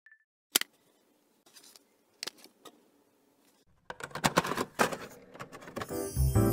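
Sharp plastic clicks of a CD jewel case being opened and a disc being handled, then a denser clatter of a CD player's disc tray closing. Music with a low bass line starts near the end.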